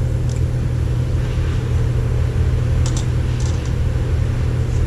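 Steady low mechanical hum, with a few faint clicks about three seconds in.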